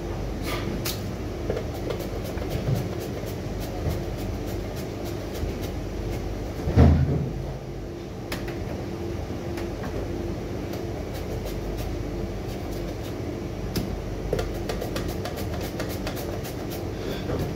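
Steady hum of a wall-mounted split air conditioner running, with scattered light knocks from work at a kitchen counter and one heavy thump about seven seconds in.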